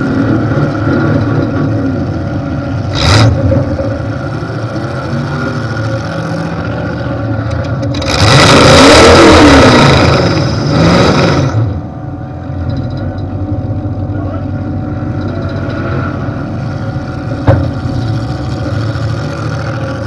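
Demolition derby car's V8 engine running steadily through open exhaust stacks, with a loud burst of revving about eight seconds in that lasts some three seconds. Two sharp knocks, one a few seconds in and one near the end.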